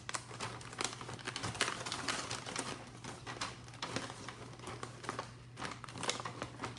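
Irregular crinkling and clicking of a disposable aluminium foil pan as fingers pick food out of it, over a faint steady low hum.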